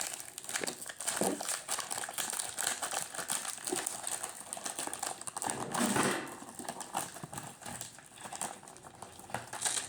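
Paperboard supplement box being opened and handled by hand: irregular crinkling and rustling with many small clicks and taps.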